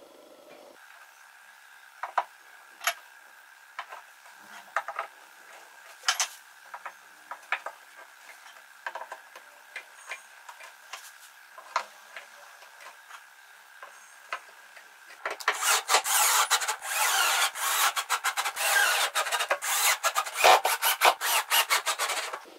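Metal coat hooks clicking and knocking against a pine board as they are fitted. About two-thirds in, a loud, rough rasping starts, full of rapid clicks, and runs on.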